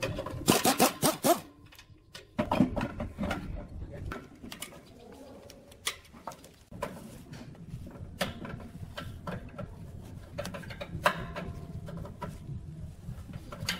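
Metal clinks and knocks of a wrench and fittings being worked on an air compressor tank's valve and pressure-gauge manifold, thickest in the first second or so. A steady low hum comes in about seven seconds in.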